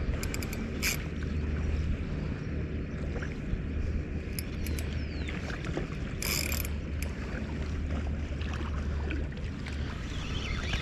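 Spinning reel mechanism clicking and whirring in short spells as it is worked against a hooked Chinook salmon, over a steady low wind rumble on the microphone.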